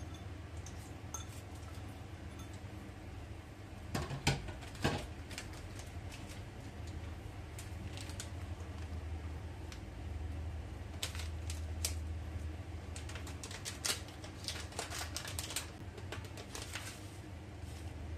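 Kitchen handling at a frying pan over a steady low hum: two sharp knocks about four seconds in as a bowl is emptied into the pan, then a run of light clicks and crinkles in the second half as a seasoning packet is handled and a spoon dips into it.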